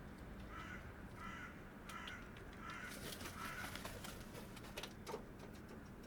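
Hooded crow cawing, a series of about five or six harsh caws in quick succession, with a few sharp clicks near the end.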